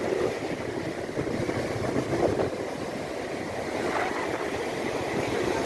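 Waves washing on the shore with wind buffeting the microphone, a steady rough rush of water.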